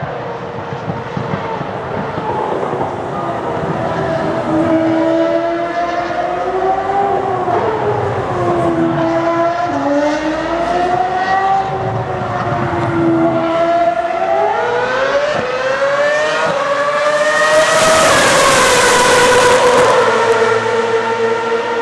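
Ferrari Formula 1 car's engine running at racing revs, its pitch rising and falling as it accelerates, shifts and brakes. About two-thirds of the way through the pitch climbs steeply, and it is loudest as the car passes close near the end.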